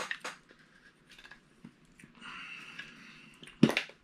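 Quiet handling of an opened Funko Soda can and its packaging: small clicks and soft rustling, then one short, sharp, louder sound near the end.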